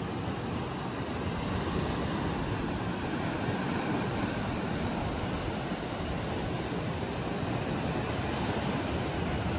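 Steady rush of ocean surf.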